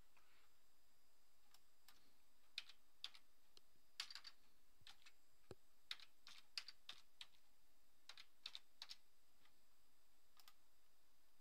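Typing numbers on a computer keyboard: a scatter of light, irregular keystrokes, ending with a mouse click near the end.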